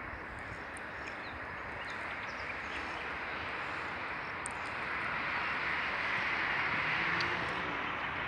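Steady outdoor background noise, like distant road traffic, growing louder from about five seconds in, with a few faint high chirps over it.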